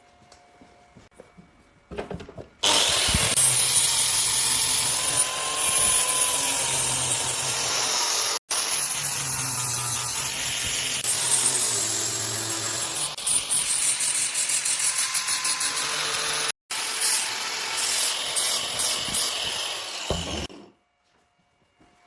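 Power tool running hard against the workpiece. It starts suddenly after a quiet first couple of seconds, is broken by two abrupt cuts, and stops shortly before the end.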